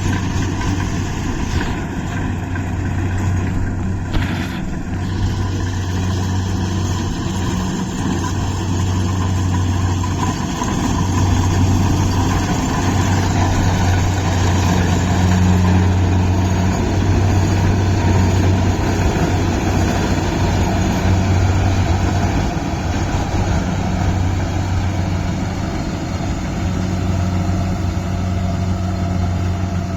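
Kubota rice combine harvester's diesel engine running steadily under load, with a low drone that swells and eases every few seconds over a constant mechanical din.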